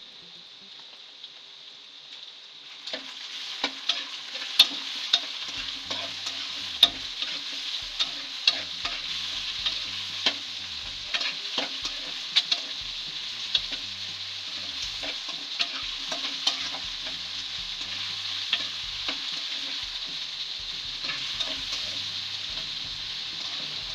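Chicken pieces frying with chopped onions in hot oil in a metal karahi: a steady sizzle that grows louder about three seconds in, as the chicken browns. A spatula stirs the pieces, with frequent sharp clicks and scrapes against the pan.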